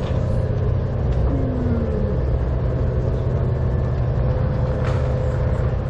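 A large engine running at a steady low rumble, with a constant hum, and a short falling whine about a second and a half in.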